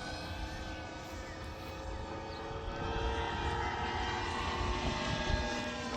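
Radio-controlled FMS P-51D Mustang model running, its electric motor and propeller droning together with the simulated piston-engine sound from an onboard G.T. Power sound module. It grows a little louder about halfway through.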